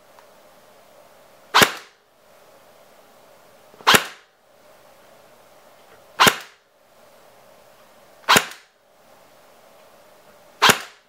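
Airsoft electric gun (AEG) with a muzzle velocity reduction adapter firing single shots, five sharp pops about two seconds apart.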